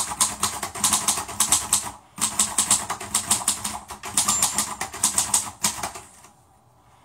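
Rapid clatter of typing keys: fast, even clicks with a brief break about two seconds in, dying away about six seconds in.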